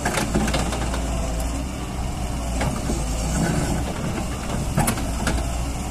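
Doosan DX140W wheeled excavator's diesel engine running steadily while the machine works its bucket in soil, with a few sharp knocks: one at the start, one midway and two near the end.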